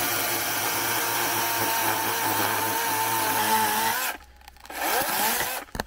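Chainsaw cutting through a tree stump and its roots at ground level, the chain running into the soil beside it, which dulls the chain. It runs steadily, stops abruptly about four seconds in, then runs again briefly near the end.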